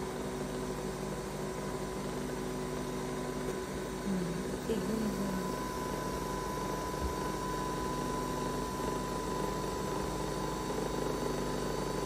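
Nespresso Vertuo Plus capsule machine brewing: a steady motor hum with a constant whine, from the capsule being spun and water pumped through it as coffee pours into the cup.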